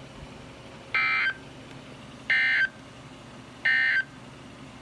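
Emergency Alert System end-of-message tones: three short bursts of SAME digital data, each a buzzy chirp about a third of a second long, starting about 1.3 s apart. They mark the end of the alert.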